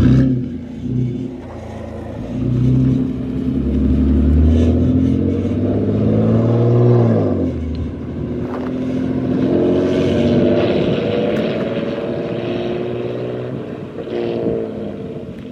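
BMW N52 inline-six running through an essentially straight-piped exhaust (gutted primary and secondary cats, no resonator or muffler). The engine note climbs for several seconds, drops sharply about seven seconds in, then holds steadier with another brief change near the end.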